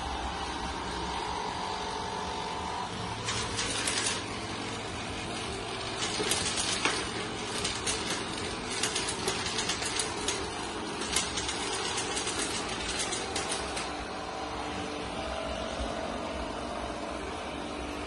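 Laresar robot vacuum and mop combo running across a hardwood floor with a steady whirring hum. From about three seconds in until about fourteen seconds in, irregular crackling clicks sound over the hum.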